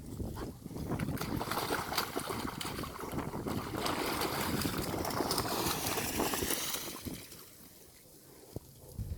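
A dog swimming in a lake, its paddling splashing and churning the water for about seven seconds before the sound dies down.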